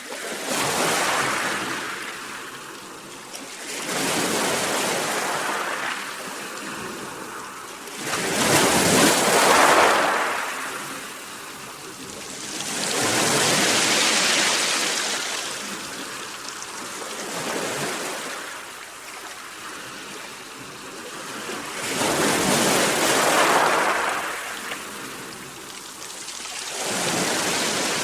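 Sea waves breaking, about seven surges, one every four to five seconds, each swelling up and then fading away.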